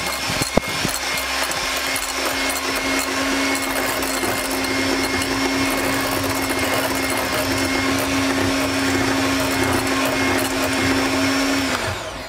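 Electric hand mixer running at one steady speed, its beaters whipping a mixture of cream and caramel in a glass bowl: a steady motor hum with rattling from the beaters. The motor is switched off near the end and the hum drops in pitch as it stops.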